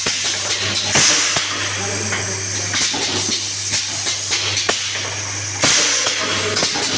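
Automatic confetti filling machine running: a steady motor hum under a constant hiss, with irregular mechanical clicks and knocks and two louder bursts of hissing, about a second in and near the end.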